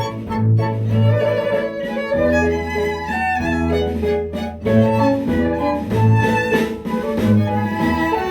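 Instrumental ensemble music: bowed strings, led by violin with cello, playing a melody of changing notes over sustained bass notes.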